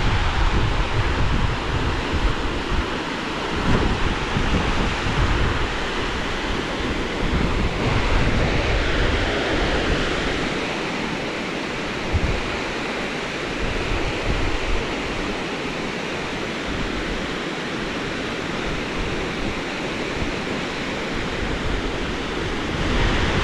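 Steady rush of water pouring over a river weir, with wind rumbling on the microphone during the first few seconds.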